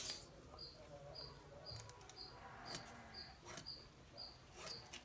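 Faint high chirps repeating evenly, two or three a second, under light rustling and soft taps of cloth being handled and marked with a pen.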